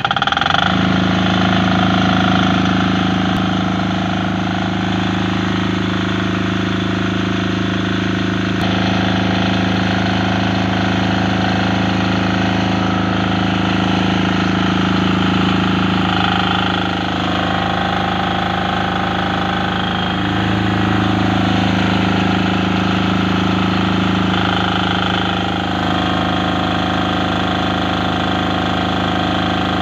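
Engine of a Maestro MT 10000 MS generator set, just started with its key switch, running at a steady, even speed. The panel reads about 228 V at 50 Hz, so it is at rated speed and producing power.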